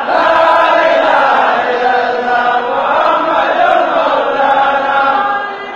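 A huge crowd of men chanting a devotional chant together in unison. The chant swells in suddenly and drops back shortly before the end.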